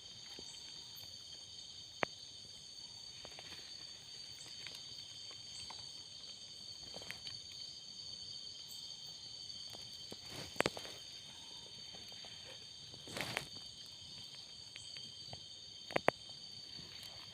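Night insect chorus, crickets or similar, holding several steady high-pitched trills. A few sharp clicks and a brief rustle stand out, the loudest a pair of clicks near the end.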